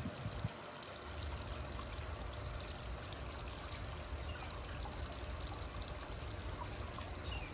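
Steady pouring and trickling of water in a swimming pool where a pressure-side pool cleaner is running, with a low rumble that comes in about a second in.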